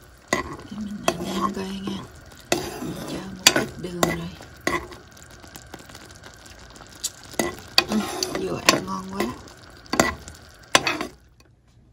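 A spoon stirring thick peanut dipping sauce simmering in a nonstick frying pan, scraping round the pan with sharp taps against its side every second or so. The sauce bubbles and sizzles underneath.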